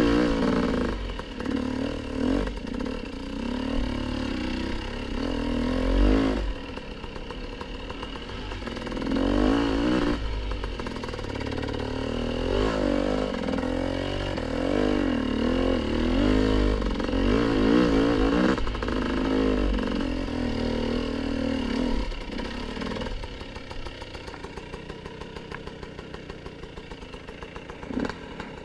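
Dirt bike engine being ridden along a rough forest trail, its revs rising and falling constantly with the throttle. From about 23 seconds in it drops to a quieter, evenly pulsing low-rev run.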